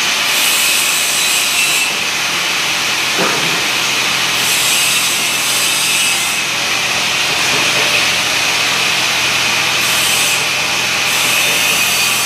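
Steady loud hiss of compressed air from the air line feeding an air suspension strut under a water leak test, with a higher, harsher hiss that starts and stops several times.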